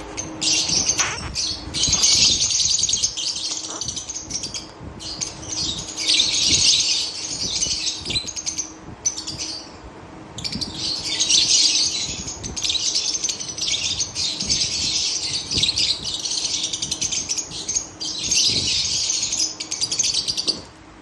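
Blue opaline budgerigars chattering and warbling rapidly in long bouts of a few seconds each, with brief pauses between them.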